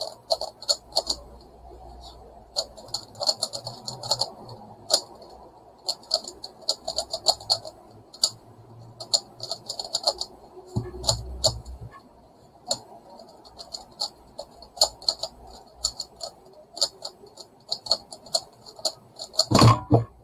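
Megaminx being turned fast in a speedsolve: its plastic faces click and clack in quick, uneven runs of turns. Near the end comes a louder clatter as the puzzle is set down on the mat and the hands come down on the timer pads to stop it.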